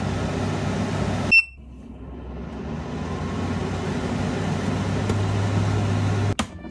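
Drybo plus pet dryer house's blower running with a steady hum. About a second and a half in, a single beep from its control panel; the airflow drops and then builds gradually back up. It cuts off suddenly near the end.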